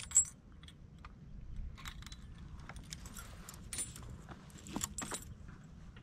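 Metal fishing tackle being handled: lure hardware and reels giving irregular clicks and jingles. The two loudest clicks come right at the start, with another cluster of clinks near the end.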